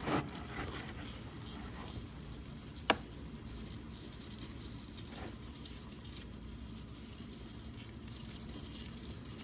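Used engine oil running from a motorcycle's drain plug in a thin stream into a drain pan of pooled oil, a soft steady trickle, as the warmed-up engine's oil is drained for an oil change. A single sharp click about three seconds in.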